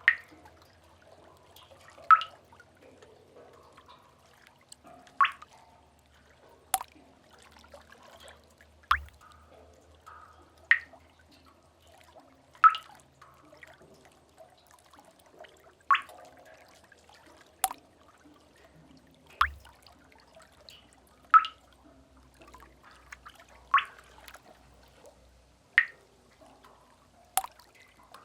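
Water drops dripping into cave water, single plinks about every two seconds, over a faint low rumble.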